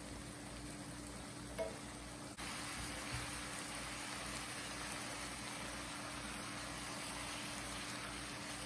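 Chicken thighs, olives and onions simmering in wine and stock in a cast iron skillet: a steady soft bubbling hiss that grows louder about two and a half seconds in. A single light tap sounds about a second and a half in.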